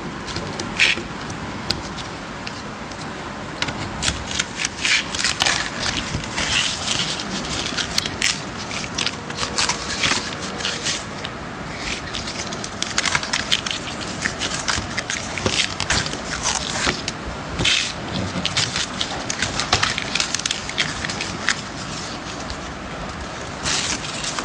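CNC router cutting letters, its bit chewing through the material with a steady noise broken by irregular crackles and scraping.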